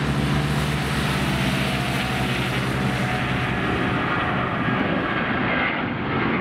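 Engine noise: a steady low hum with a pulsing rumble, loudest for the first three seconds or so and then fading, over a constant broad roar.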